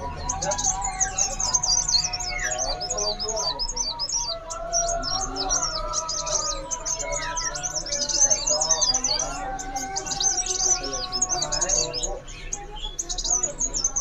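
A dense chorus of many caged songbirds chirping and calling at once, with rapid high chirps over lower held and gliding whistles.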